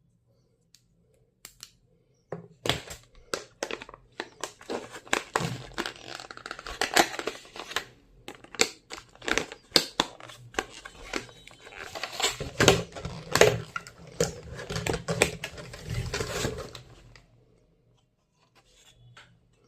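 Packaging being opened and handled: a long run of crinkling, tearing and sharp clicks, starting about two seconds in and stopping a couple of seconds before the end.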